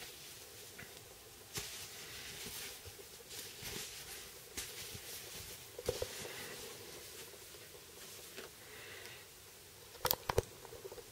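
Faint rustling and rubbing of a cotton T-shirt as it is handled and stretched, with a few sharp clicks or knocks about ten seconds in as it is laid down on the desk.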